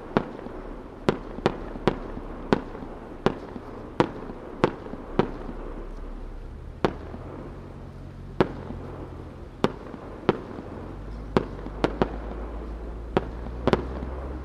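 Aerial firework shells bursting at a distance: a string of about twenty sharp bangs at irregular intervals, sometimes two or three close together.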